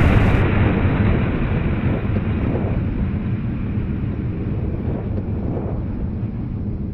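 A loud, rough rumble, strongest in the low end, at its loudest at the start and slowly fading away over several seconds.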